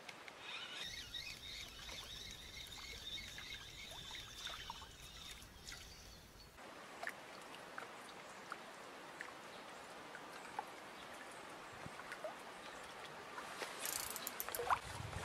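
Faint open-air waterside ambience: water lapping, with high bird-like chirping in the first few seconds. Near the end a louder gust of wind buffets the microphone, along with a few clicks.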